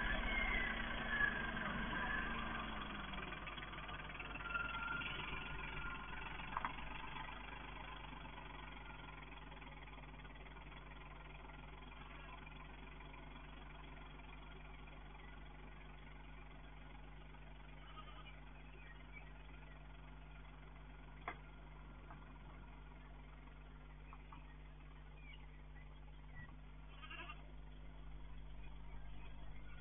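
Opel Corsa engine running as the car drives away up a paved driveway, fading over the first several seconds into a faint steady hum, with a single sharp click about twenty seconds in. Heard through a security camera's microphone, which sounds thin.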